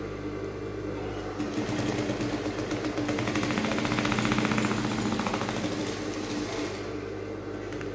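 Industrial sewing machine stitching down a boning casing through layered fabric: a fast, even run of stitches starts about a second in, gets louder in the middle and stops near the end. The machine's motor hum runs steadily underneath.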